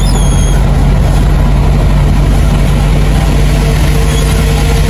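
Car driving along a road: steady engine hum under loud road noise, with a faint steady tone joining about three seconds in.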